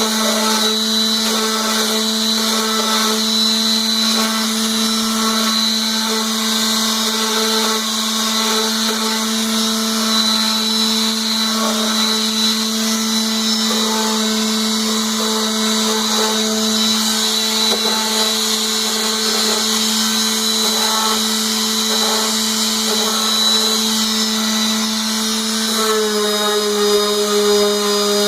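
Power sanding a maple bowl on a wood lathe: electric motors running with a steady whine and hum, dropping slightly in pitch near the end.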